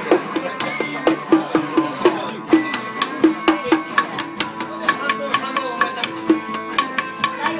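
Karaoke backing music played over the bar's speakers, with a busy percussion beat of sharp taps and short drum hits, several each second.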